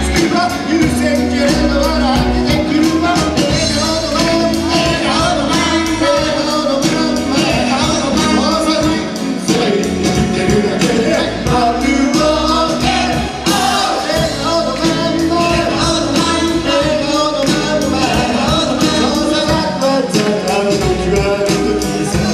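Small live band playing an upbeat pop song: a man and a woman singing into microphones over acoustic and electric guitar, keyboard and drums.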